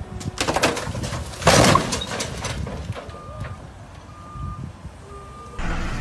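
A tall stack of bagged load topples from a forklift onto a utility trailer with a crash and clatter, loudest about a second and a half in. Then a reversing alarm beeps three times, about once a second.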